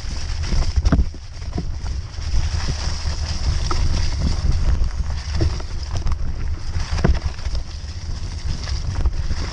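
Mountain bike ridden over a muddy, rough trail: a steady low wind rumble on the camera microphone with tyre and chassis rattle, and sharp knocks over bumps, the loudest about a second in and again about seven seconds in.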